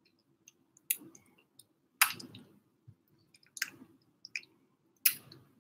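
A kitten eating wet canned cat food with its face in the bowl: sharp wet smacking and clicking chewing noises, a louder smack about once a second with smaller clicks in between.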